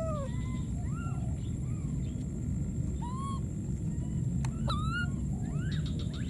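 Baby macaques giving short, arched, squeaky coo calls, roughly one every second, over a steady low background rumble.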